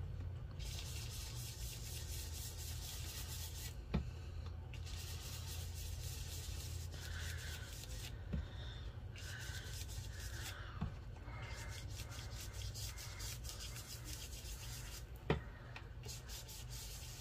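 Steady, quick rubbing strokes on a paper craft piece as ink is worked over or wiped off its surface, with a few soft knocks along the way.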